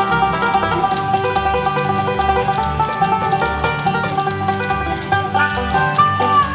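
Live bluegrass band: a five-string banjo picks the lead over strummed acoustic guitar and a steady pulse of upright bass notes. Near the end, long held higher notes come in over the picking.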